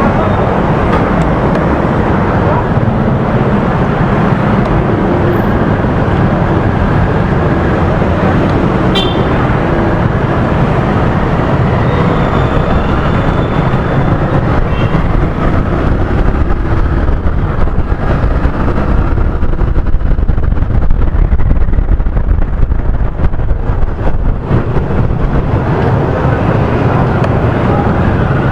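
Riding noise picked up by an SJ6 Legend action camera's add-on microphone: a steady, loud rush of wind and road noise mixed with the motorcycle's running engine and the surrounding traffic. A short high beep sounds about nine seconds in.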